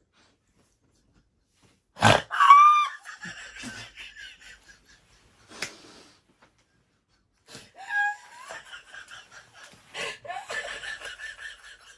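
Hard laughter in several fits: a loud burst with high-pitched squeals about two seconds in, another around eight seconds, and a run of giggling near the end.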